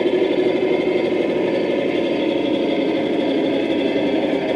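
A steady, unbroken mechanical drone, like a motor running at a constant speed.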